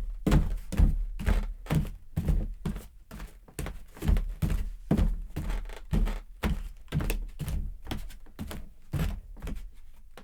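Footsteps walking steadily indoors, about two steps a second.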